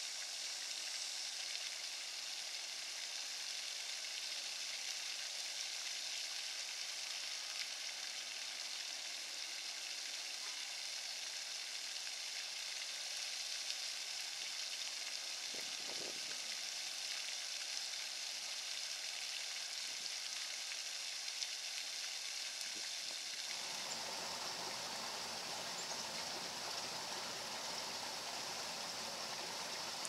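Steady, high-pitched outdoor background hiss. About three quarters of the way through it changes abruptly to a fuller, lower rushing noise.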